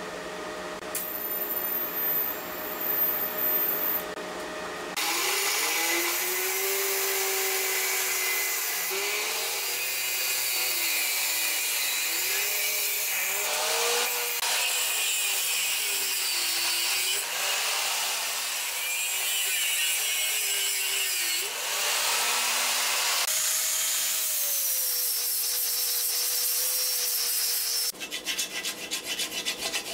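Angle grinder with a flap disc grinding steel welds. Its motor tone dips and recovers over and over as the disc is pressed on and eased off, and runs steadier near the end. It opens with a few seconds of TIG welding and ends with quick back-and-forth strokes of a hand wire brush on the steel plate.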